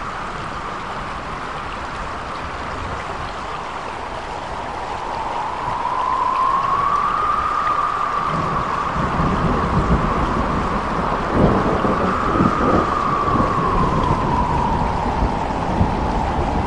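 Steady rain with wind buffeting the microphone, and a thin whistle-like tone drifting slowly up and down over it. About halfway through, a low rumble grows louder and a few knocks come through.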